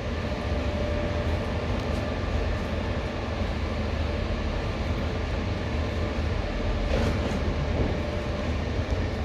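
Airport transit train running, heard from inside the car: a steady low rumble with a faint whine over it.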